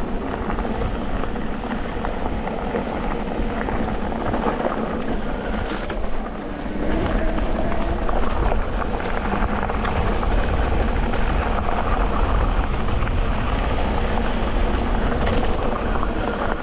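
Electric mountain bike riding along a dirt trail: a steady rumble of tyres rolling over the ground, with many small rattles and clicks from the bike over bumps.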